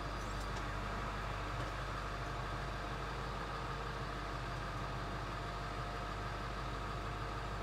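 7.3L Power Stroke V8 turbo diesel idling steadily.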